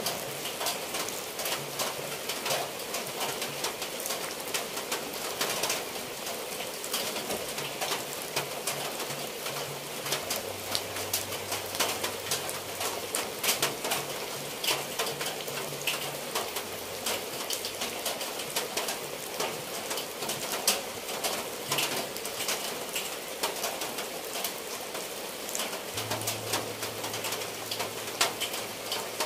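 Steady rain falling on a clay-tiled roof and the ground, with many separate drops and drips ticking. A dove coos at times over the rain.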